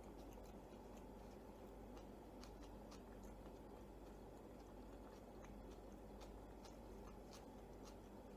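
Near silence with faint, irregular small wet clicks of a person chewing a mouthful of naan wrap with the mouth closed.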